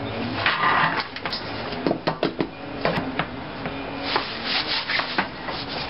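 Thin sheet-steel panel handled on a metal workbench: it scrapes and rubs against the bench top, with a run of sharp clicks and taps as it is lifted, flexed and pressed flat.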